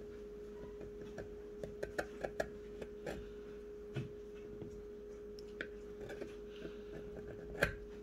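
Faint, scattered ticks and light scraping as a piece of cardboard scrapes excess silicone sealant off around a kayak hatch ring, with a sharper tick near the end, over a steady faint hum.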